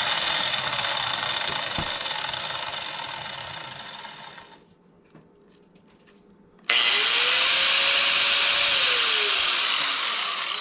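Makita 4-inch angle grinder running free with no disc load, then winding down and stopping about four and a half seconds in. About two seconds later a grinder is switched on with a sudden start and runs at full speed.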